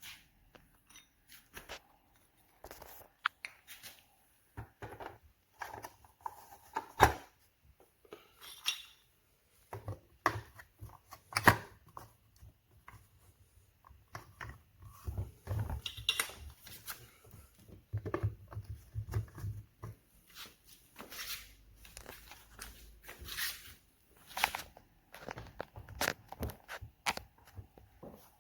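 Scattered clicks, knocks and short rustles of things being handled, with no vacuum motor running.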